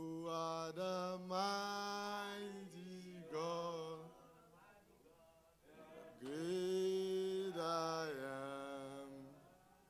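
A man singing a slow, unaccompanied worship melody into a microphone, wordless or too drawn out to make out words, in long held notes. The phrases break off for a couple of seconds around the middle, then a final long phrase fades near the end.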